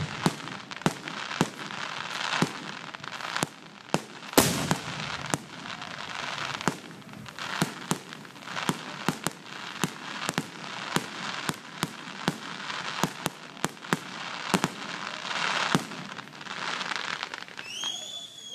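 Aerial fireworks in a rapid, continuous string of bangs with crackling between them: the grand finale of a fireworks display. The loudest bang comes about four seconds in.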